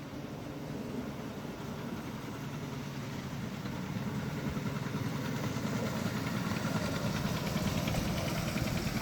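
Small petrol engine of a 7¼-inch gauge petrol-hydraulic locomotive running steadily and growing gradually louder as it approaches, then cutting off suddenly.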